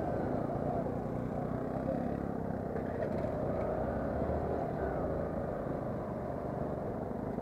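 Motorcycle engine running steadily at low speed, mixed with wind and tyre rumble over a rough gravel track.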